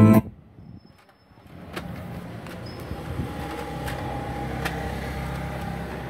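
Music playing through a Victor MD300 mini hi-fi's speakers stops abruptly a moment in, as a button on its CD deck is pressed. After about a second of near quiet, a steady low rumble of background noise with a few faint clicks follows.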